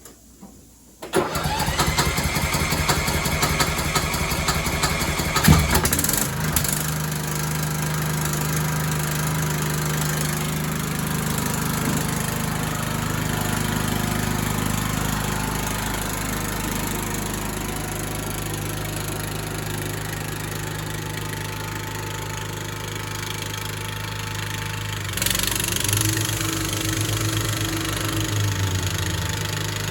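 Kohler Courage engine of a Toro LX425 lawn tractor being started: the electric starter cranks with a whine for about four seconds, the engine catches with a sudden jump in loudness, then runs steadily. Near the end the engine note shifts.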